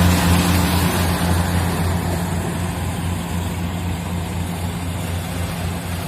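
Combine harvester's diesel engine running steadily with a deep, even hum that grows gradually quieter.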